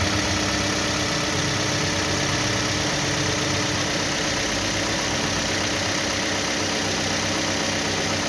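A truck engine idling steadily at an even level. It is an engine sound for a cardboard RC toy petrol tanker.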